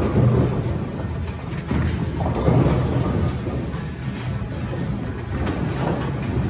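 Bowling alley din: bowling balls rolling down the lanes and pins clattering, a steady low rumble that swells louder near the start and again about two and a half seconds in.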